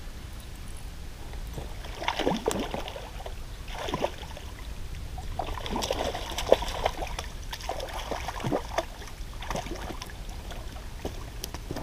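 A hooked bass splashing and thrashing at the surface near the bank as it is reeled in. Irregular splashes and sloshes start about two seconds in and come in a run of bursts.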